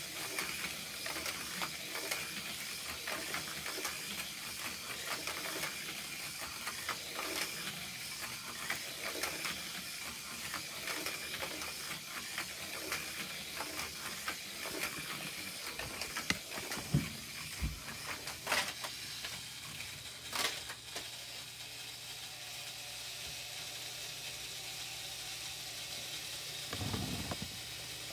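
Battery-powered Hot Wheels Speed Chargers toy cars racing round a plastic track, giving a steady hissing rattle full of small clicks, with two sharper clicks past the middle.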